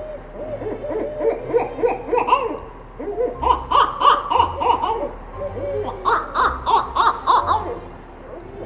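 Barred owl calling in three quick bouts of arched, hooting notes that climb in pitch toward a cackle, a call to its mate.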